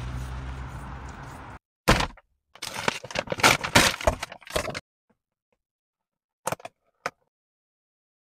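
Steady outdoor street noise with a low hum cuts off about a second and a half in. Then a brown paper takeout bag crinkles and rustles for about three seconds as gloved hands pull containers out of it. Two short clicks follow a couple of seconds later.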